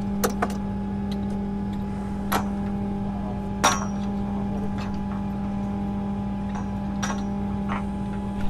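Metal tools clinking and knocking on galvanized steel well pipe at the wellhead: a handful of short sharp clanks, the loudest about three and a half seconds in, a couple of them ringing briefly. Under them, a steady engine hum at one pitch.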